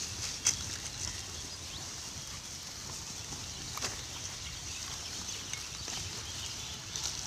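Pigs feeding in a garbage heap: snuffling, chewing and rooting through plastic wrappers and food waste, with a few sharp crackles of plastic. A steady high hiss runs behind.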